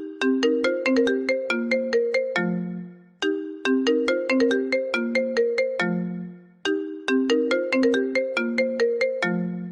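iPhone ringtone playing. A short bright melody of quick notes ends on a lower, longer note and repeats about every three seconds: three times through, with a fourth starting near the end.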